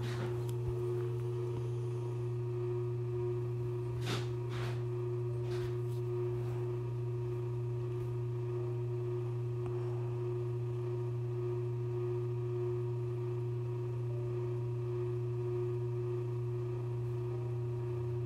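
A steady, unchanging low drone with a single held tone above it, with a few faint clicks about four to six seconds in.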